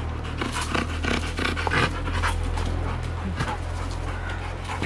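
Rottweiler panting quickly and hard from exertion during a spring-pole workout, over a steady low rumble.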